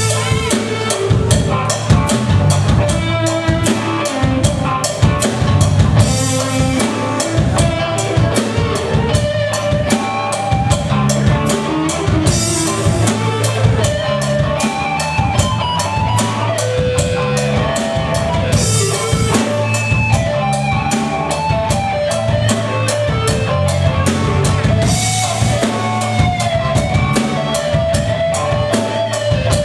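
Live rock band playing an instrumental passage: electric guitars over bass guitar and a drum kit, with steady cymbal strokes and a crash about every six seconds. A lead guitar line bends up and down in pitch over the top.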